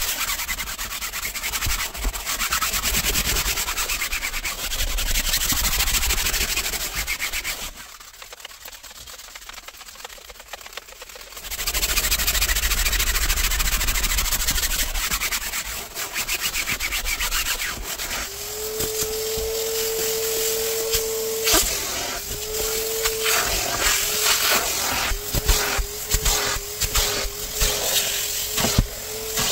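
Hand brush scrubbing a fabric van seat in quick back-and-forth strokes, with a short pause about eight seconds in. In the last third a steady hum joins the scrubbing, along with sharper strokes and clicks.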